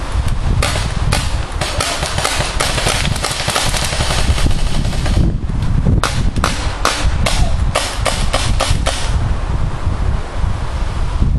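Paintball markers firing in two long runs of quick pops, the first starting about half a second in and the second starting about six seconds in. Wind rumbles on the microphone throughout.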